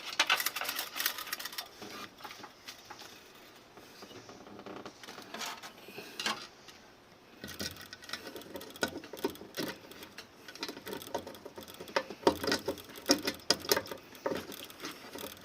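Clicking and rattling of small metal water-heater parts being handled and fitted, dense at first, sparse for a few seconds in the middle, then busy again in the second half.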